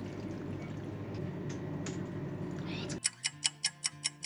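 A low steady hum with a couple of light knocks, then about three seconds in a clock-ticking sound effect starts: fast, even ticks, about five a second, with faint tones under them.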